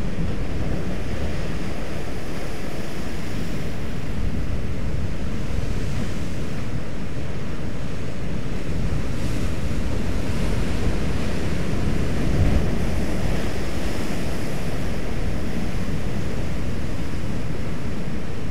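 Rough sea surf breaking and churning against a rocky shore, a steady rushing noise with wind buffeting the microphone; one wave breaks a little louder about two-thirds of the way through.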